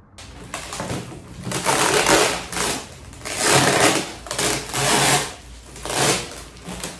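Plastic bags and cardboard packing being handled and pulled out of an office chair's shipping box, crinkling and rustling in several loud swells.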